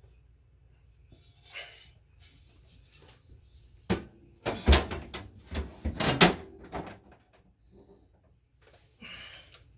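Refrigerator trays and shelves being handled: a sharp knock about four seconds in, then a run of knocks and clatter lasting a few seconds.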